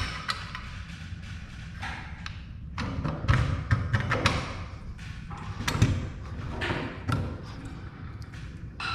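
Scattered thumps, knocks and light clicks of the garage door opener's rail being handled and pinned to the header bracket on the wall, over a low rumble.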